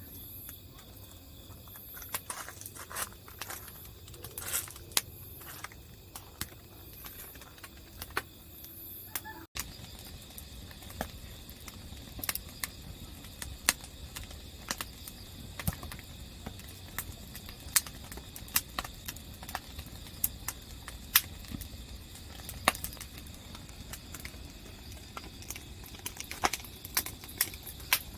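Campfire of split firewood burning, crackling with sharp irregular pops over a low steady background, with a brief dropout about ten seconds in.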